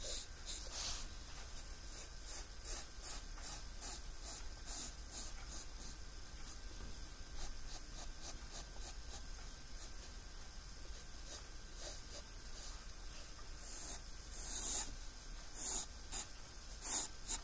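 Graphite pencil sketching on sketchbook paper: short, quick scratchy strokes repeating a few times a second as hair lines are drawn, a little louder near the end.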